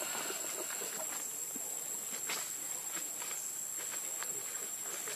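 Steady high-pitched insect chorus, a constant shrill tone over a hiss, with scattered soft clicks and rustles.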